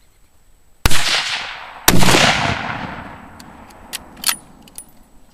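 Two loud rifle shots about a second apart, each followed by a long fading echo, then a few faint clicks.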